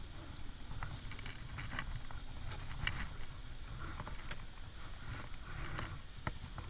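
Terry towel rubbing over a wet standard poodle puppy's curly coat, a soft scrubbing with scattered small clicks, over a steady low rumble.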